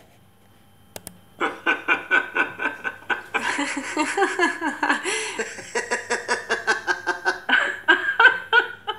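Human laughter, a rhythmic run of ha-ha pulses at about four to five a second, starting about a second and a half in and going on for several seconds.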